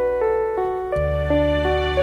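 Background music: a gentle melody of short, evenly paced notes, with a low steady bass tone coming in about a second in.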